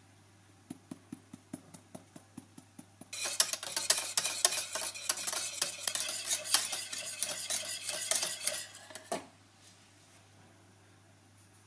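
A kitchen utensil stirring in a pot: light, regular clicks about five a second, then from about three seconds in a fast, loud clattering and scraping stir that stops abruptly about nine seconds in.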